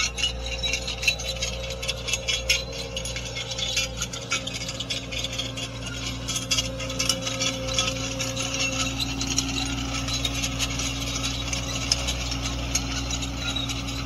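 Caterpillar skid steer's diesel engine running with a steady hum as it drives with a grapple load of loose hay, with light metallic rattling and clinking throughout.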